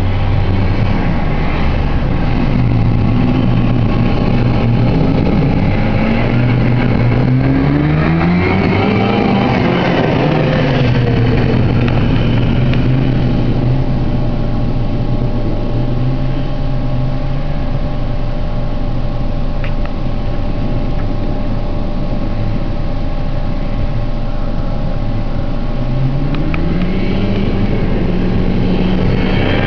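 1976 Massey Ferguson Chinook snowmobile's two-stroke engine revving up and easing back, once about a quarter of the way in and again near the end. Underneath, an engine idles steadily throughout.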